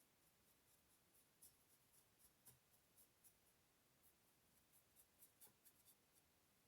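Faint brush strokes and dabs on paper: a string of soft, irregular ticks and scratches.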